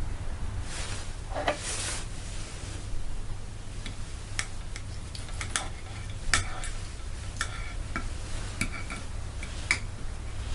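Metal fork clinking and scraping on a ceramic plate while pulling meat off a roast chicken leg: a string of sharp irregular ticks in the second half, after a couple of brief rustles.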